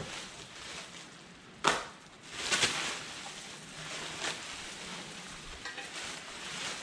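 Plastic packaging bag crinkling and rustling as a new trailing arm is pulled out of it, with a sharp knock about a second and a half in, the loudest sound, and a louder stretch of crinkling just after.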